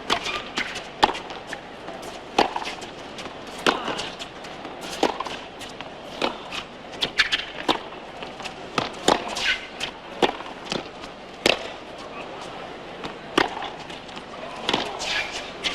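Tennis rally: rackets striking the ball with sharp pops and the ball bouncing, roughly one impact every second, with short high squeaks in between.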